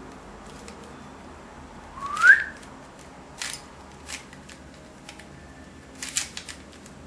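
Plastic clicks of a YongJun Windmill 3x3 puzzle cube's layers being turned, a few scattered clacks with a quick cluster near the end. About two seconds in, a short rising whistle stands out as the loudest sound.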